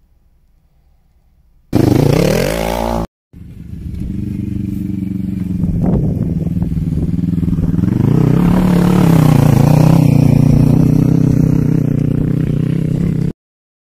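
Sport quad ATV engine under throttle: a quick rising rev about two seconds in, a brief cut, then a longer stretch of the engine running with its pitch rising and falling as the quad is ridden, stopping abruptly near the end. Faint music fades out at the start.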